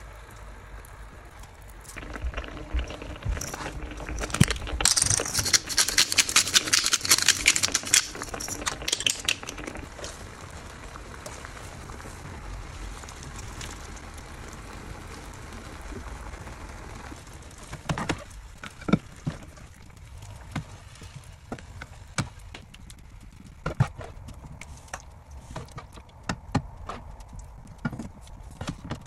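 Cod fillets simmering in a soy-sauce braising liquid in a nonstick frying pan, crackling and sizzling loudly for several seconds, then settling to a quieter steady hiss. Later come scattered clicks and taps of a slotted spatula against the pan and plate.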